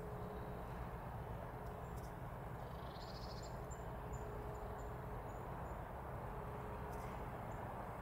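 Steady low outdoor background rumble. A brief chirp about three seconds in is followed by a row of faint, short, high-pitched calls from a small bird that last a few seconds. The woodpecker is not drumming or pecking.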